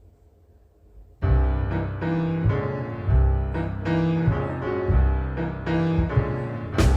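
Background music: after a quiet first second, keyboard chords over a bass line start abruptly, changing every half second or so, and a drum beat comes in near the end.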